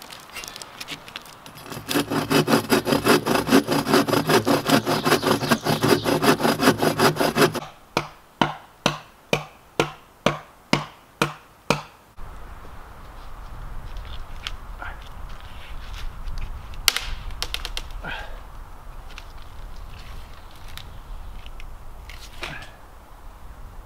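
Hand saw cutting through a dead log in fast, even strokes, about three to four a second, followed by a run of about nine slower, sharper strokes half a second apart. After that, only a few scattered knocks and clicks over a low rumble.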